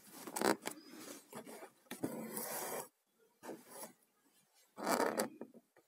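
Needle and embroidery thread pulled through fabric held taut in a wooden embroidery hoop: about six short drawn strokes, one of them lasting about a second.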